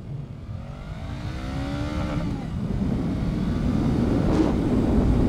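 Honda Rebel 500's parallel-twin engine revving up under hard acceleration, with a quick-spooling sport-bike whine that climbs in pitch over the first couple of seconds. Wind rush grows steadily louder as the speed builds.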